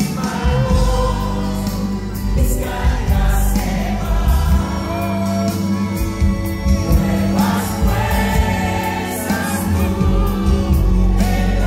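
Live Christian worship music: a band with drums and keyboard playing, with singing over it.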